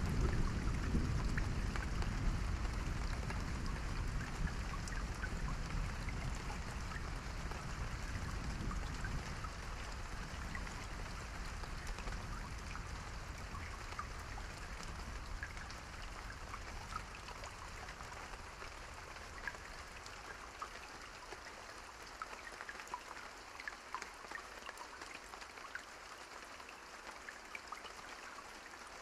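Steady rain falling, with scattered individual drop ticks. A low rumble of thunder dies away gradually over the first twenty seconds or so, leaving only the rain.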